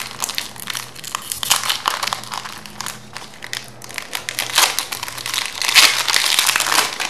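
Foil wrapper of a Pokémon TCG Fusion Strike booster pack crinkling as it is handled and opened, loudest from about halfway through to near the end.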